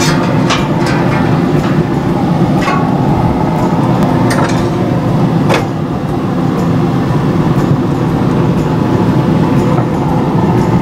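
Wood pellet grill running with a steady mechanical hum and rumble, its fan going while the grill cooks. Several sharp light metal clicks and clinks sound over it as the meat probe and its wire knock against the grill grate.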